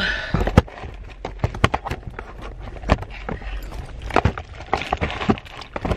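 Handling noise from a handheld camera: irregular clicks, knocks and fabric rustle as it is moved against clothing, over a low steady rumble.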